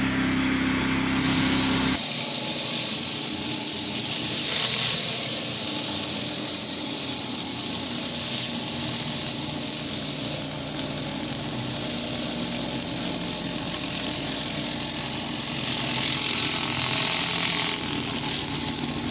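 Gas-engine pressure washer running steadily while its high-pressure water spray hisses against concrete. The spray comes on stronger about a second in and eases slightly near the end.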